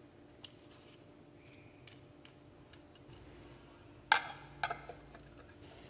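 A glass lid set down on a clay pot: a sudden clatter about four seconds in, then a couple of smaller knocks as it settles, after a few faint taps.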